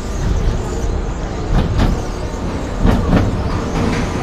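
Big Apple Coaster train rolling along its steel track, heard from a rider's seat: a steady heavy rumble of the wheels with a few clanks, the loudest about three seconds in.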